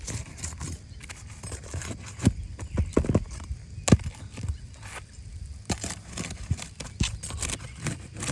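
Irregular knocks and clicks, a few of them sharper and louder, over a low steady rumble.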